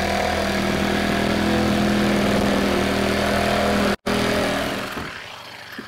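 Electric jigsaw running steadily as it cuts out a window opening in a playhouse. It breaks off for an instant about four seconds in, then dies away near the end.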